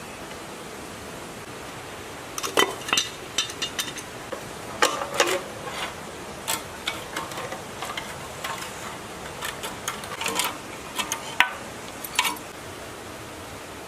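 Irregular metallic clinks and scrapes of a hand tool working on the rusty fittings of an old small diesel engine, starting a couple of seconds in and stopping near the end, over a steady hiss.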